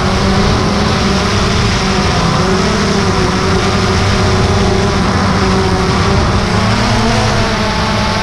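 DJI Phantom 2 quadcopter's electric motors and propellers in flight, heard from the camera mounted on the drone itself: a steady buzzing hum of several pitches that waver a little as it manoeuvres, over a rush of air noise.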